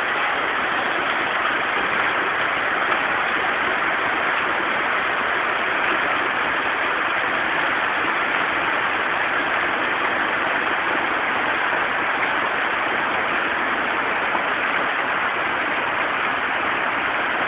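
Heavy rain pouring down with rushing runoff water, a steady unbroken hiss.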